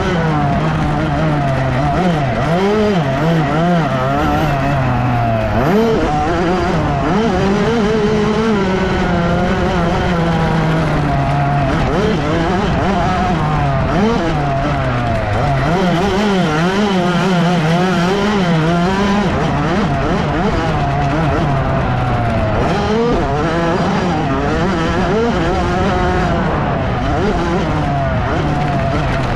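Motocross dirt bike engine revving up and down over and over as the bike is ridden around the track, heard up close from a camera on the bike, with wind and rushing noise under it.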